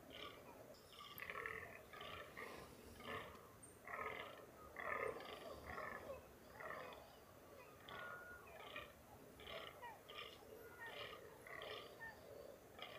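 Fallow deer calling in the rut: a faint, steady string of short, repeated calls, about one or two a second.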